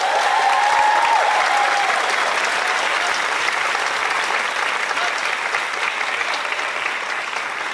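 Theatre audience applauding steadily at the end of a tap dance number, with a drawn-out whoop rising and falling over the clapping in the first second and a half.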